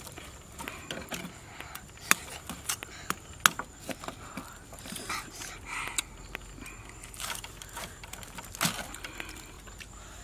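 Grilled pork ribs being torn apart by hand and cut with a knife: irregular sharp cracks and clicks of charred meat and rib bone giving way, with soft rustling in between.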